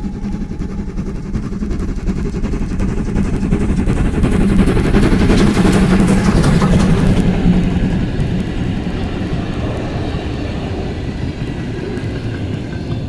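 Class 78 steam tank locomotive 78 468, built by Henschel in 1923, passing close with its train. The running noise builds and is loudest as the engine goes by about five seconds in, then the coaches roll past on the rails.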